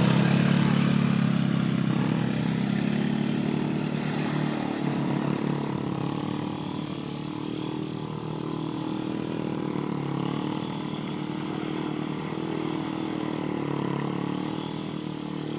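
A small vehicle engine running, its pitch wavering up and down, getting quieter over the first several seconds and then holding steady.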